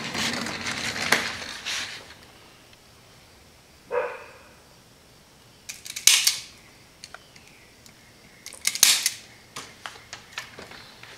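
All-metal zip tie gun cinching nylon zip ties tight and snipping off their tails, with rustling as the ties are pulled through. There is a short rasp about four seconds in, and sharp snaps about six and nine seconds in.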